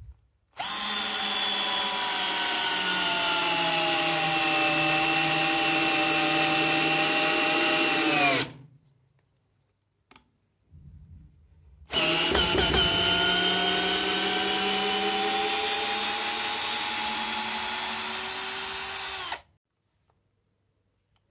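Parkside PBSA 12 D4 12 V cordless drill driving a long screw into a wooden beam. Its motor whine sinks slowly in pitch as it works under load for about eight seconds, then falls away as it stops. After a short pause with a few clicks, it runs again for about seven seconds and stops.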